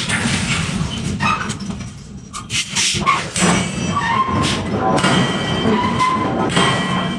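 Forging-shop din: heavy machinery running steadily with a low rumble, short squeals, and a few sharp metallic knocks between about one and three seconds in.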